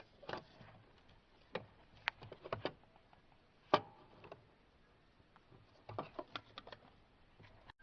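Scattered light clicks and taps of plastic parts being handled, about a dozen spread irregularly, the sharpest a little under four seconds in.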